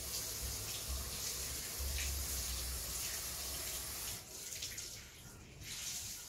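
A steady rushing hiss, like running water, that dips briefly and then stops abruptly at the end, with low rumbles underneath.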